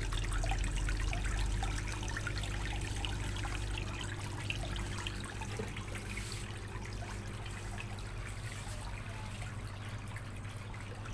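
Water running out of an LG washing machine's drain hose onto the floor, over the steady hum of the drain pump. The machine is draining freely again, its blockage cleared, and the flow eases slightly toward the end.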